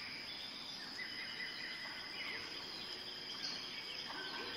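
Forest ambience: a steady, high-pitched insect trill with scattered faint bird chirps.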